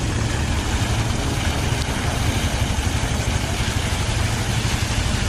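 An engine running steadily, most likely the pump driving the hoses, with the rush of high-pressure water jets blasting into thick flood mud.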